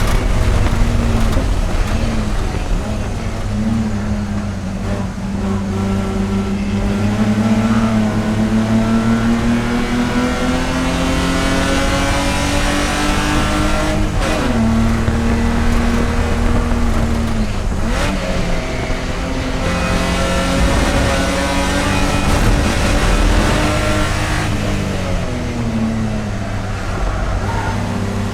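Race car engine running hard through a lap. Its pitch climbs slowly over a long stretch, then drops sharply twice, and rises and falls again toward the end.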